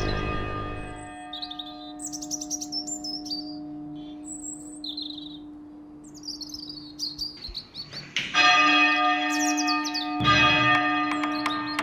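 Birds chirping over the long, steady hum of a ringing church bell. The bell is struck loudly about eight seconds in and again about two seconds later.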